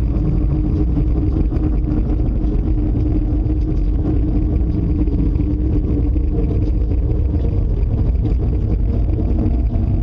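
A loud, steady, deep rumble with a low hum held under it, without letup or change.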